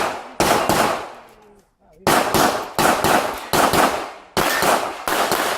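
Chiappa Rhino revolver fired in a quick string of shots, about one every three-quarters of a second. Each shot has a sharp double crack and echo, and there is a short pause of about a second and a half early on.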